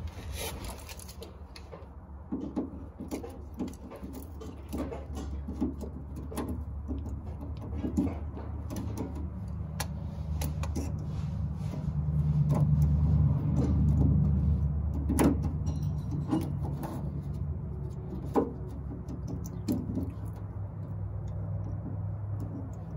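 Hand tools, pliers and then a wrench, clicking and scraping on the metal fuel line fitting under the fuel tank as it is worked loose, with a low steady hum underneath that swells about halfway through.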